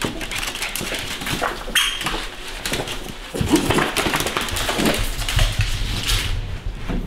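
A small white dog whimpering in short, pitched cries, with clicks and scuffles of its claws on a hardwood floor.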